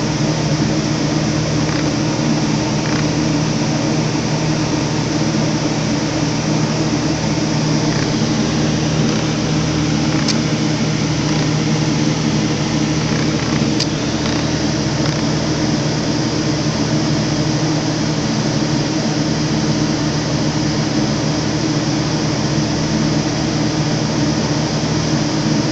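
A steady, unchanging mechanical hum with a low drone, like a fan or air-conditioning unit running, with a few faint ticks.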